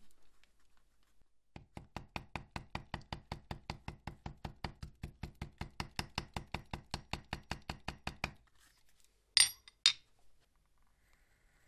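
Steel leathercraft hammer tapping a piece of leather on a granite slab, light quick blows at about five a second for some seven seconds. Near the end, two louder sharp clacks of the steel hammer being set down on the stone.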